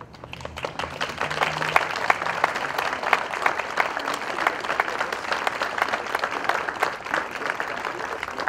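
Crowd applauding with many hands clapping, swelling over the first second and then holding steady.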